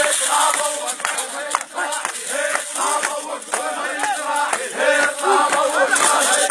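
Crowd of men chanting a hosa, an Iraqi tribal chant, together in rising and falling phrases.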